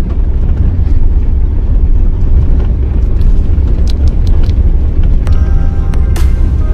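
Vehicle driving over a rough stubble field, heard from inside the cab: a steady, heavy low rumble with scattered sharp knocks and rattles. Music with steady tones comes in about five seconds in.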